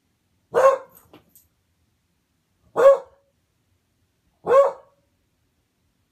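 A dog barking three times, single barks about two seconds apart: alert barks at someone hidden out of sight.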